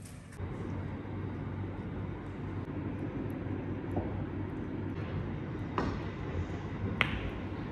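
Sharp clicks of a pool cue and billiard balls striking on a pool table, a few times, the loudest about seven seconds in, over a steady low background hum.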